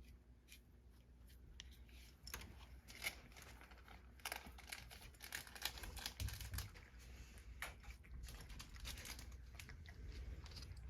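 Cat crunching dry kibble sprinkled with bonito flakes: quiet, irregular crackly clicks of chewing and of the food shifting in the bowl.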